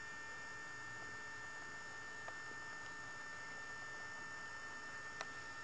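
Steady electrical hum with several thin, high, steady whining tones. Two faint clicks, about two seconds in and near the end.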